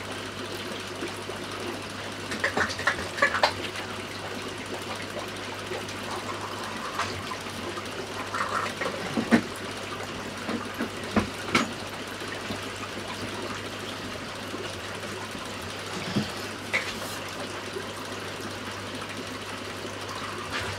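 Aquarium water trickling steadily over a constant low hum, with brief louder splashes and bubbling now and then.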